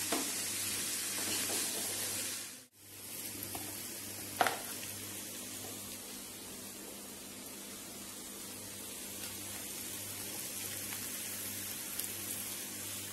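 Chickpeas (chole) with spices sizzling and frying in a steel kadhai while being stirred with a slotted spoon, cut off after about two and a half seconds. A steady hiss follows, with a single sharp knock about four and a half seconds in.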